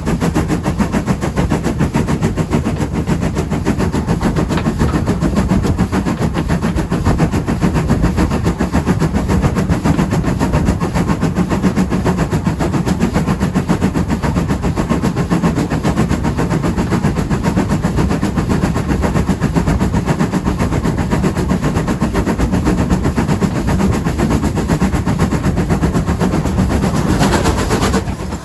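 Loud, steady rumble of a moving train heard at an open carriage window, with a dense, fast pulsing throughout. It changes abruptly just at the end.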